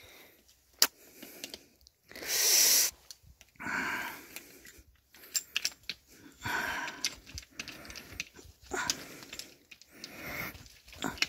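A man's heavy breathing, huffs and sighs, with scattered sharp clicks and knocks of metal parts as he works on a frost-free yard hydrant that will not shut off. The loudest is one forceful hiss-like exhale about two seconds in.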